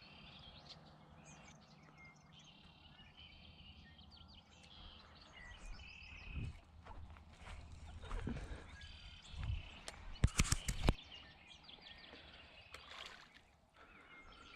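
Birds chirping repeatedly in the background, with a few dull knocks and a quick cluster of sharp clicks a little past the middle.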